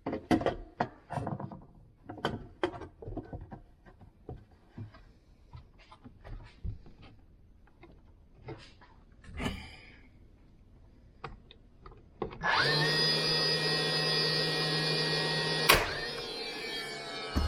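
Scattered knocks and clatter of wooden boards being handled, then an electric power tool's motor starts about twelve seconds in and runs at a steady pitch for about three seconds. A sharp crack follows, and the motor winds down.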